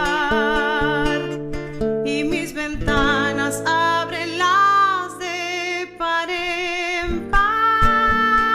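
A woman singing long sustained notes with a wide vibrato, accompanied by a strummed acoustic guitar. About seven seconds in she settles on one long high held note.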